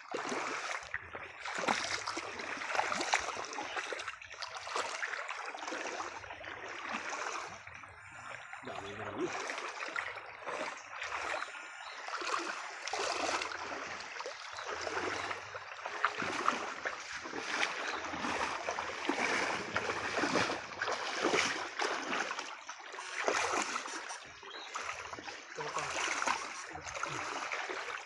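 Water splashing and sloshing in irregular surges as someone wades through a shallow stream and works a scoop net, over the stream's running water.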